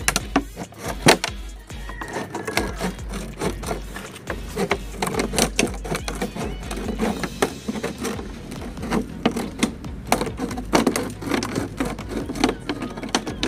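Scissors cutting through a plastic gallon jug: a run of irregular, crackling snips, over background music.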